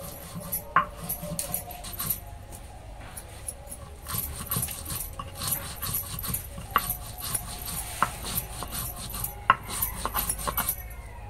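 Hand grinding stone rolled and rubbed back and forth over a wooden board, crushing wet herbs and spices into paste: repeated scraping, grinding strokes with gritty clicks, picking up a steadier rhythm partway through. A few short, sharp louder sounds stand out above the grinding.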